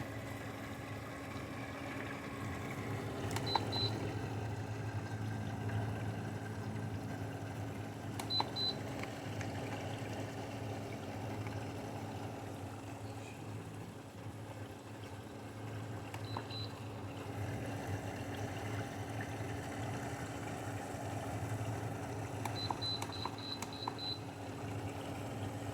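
LG 6,000 BTU window air conditioner's fan running with a steady hum, its compressor not yet started. Short electronic beeps from its control panel sound three times, then a quick run of about five near the end.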